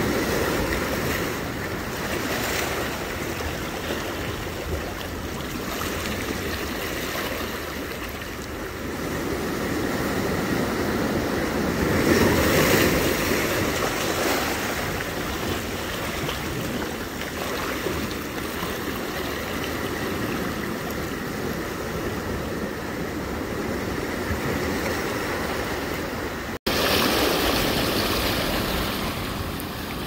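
Ocean waves breaking and washing ashore in a steady rush, swelling louder about twelve seconds in, picked up by earbud microphones. The sound drops out for an instant near the end and comes back a little louder and hissier.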